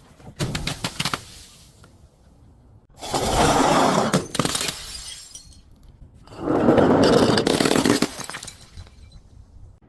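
Glass bottles breaking and crunching: a short crackle just after the start, then two longer loud bursts of shattering and crunching glass, about three and six and a half seconds in.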